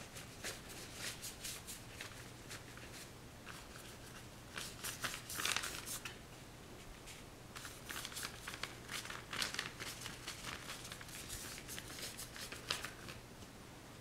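Paintbrush strokes scratching and rustling on paper: short, irregular dry strokes that come in bunches, the loudest a little over five seconds in.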